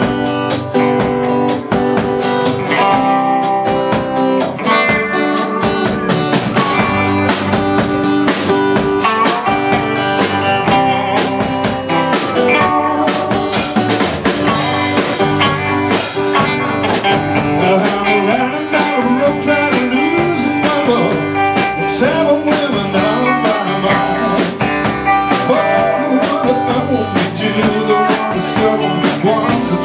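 Live four-piece rock band playing a song: electric and acoustic guitars, bass guitar and drum kit, with a steady drumbeat.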